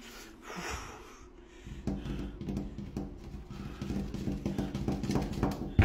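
Low whimpering, a steady pitched moan that grows louder from about two seconds in.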